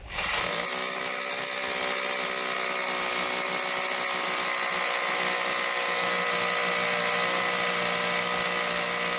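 Hanbo 920 W three-function rotary hammer drilling a 10 mm hole into a hard concrete slab. It starts up sharply and runs at a steady pitch and level.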